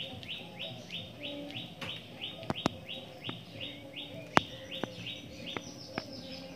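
A fast run of short, high chirps, each falling in pitch, about three a second, stopping about five seconds in, with several sharp cracks scattered through; the loudest crack comes about four seconds in.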